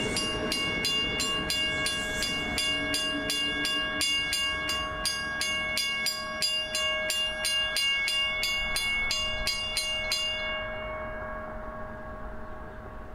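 A railroad bell struck about three times a second, with the sound of a South Shore Line electric train underneath. The bell stops about ten seconds in, and the train sound fades away after it.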